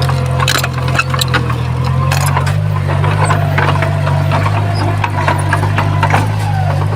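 Heavy earthmoving machine's diesel engine running steadily, its pitch shifting slightly partway through, with frequent sharp clanks and rattles of metal and stone.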